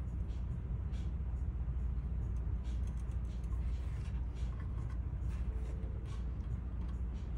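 Soldering iron and braided copper solder wick working solder out of a circuit board's mounting hole, giving light scattered ticks and crackles over a steady low rumble.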